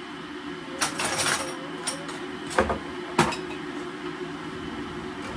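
Several sharp clicks and knocks of kitchen utensils being handled at a counter, over a steady low background hum.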